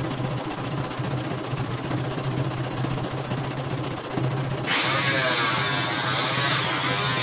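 CNY home embroidery machine stitching steadily on a test run after servicing, a fast, even mechanical hum from the needle drive and hoop motion. About two-thirds of the way in, a louder warbling sound with high, wavering tones comes in suddenly over it.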